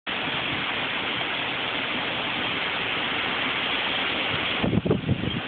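Steady rush of storm wind and heavy rain from a hurricane, recorded on a phone. Near the end a few gusts buffet the microphone with low rumbling jolts.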